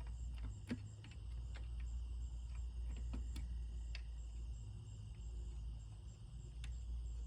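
Scattered small clicks and taps of hardware and hand tools being handled while a fastener is fitted into a car seat frame, over a steady high insect chirring and a low hum.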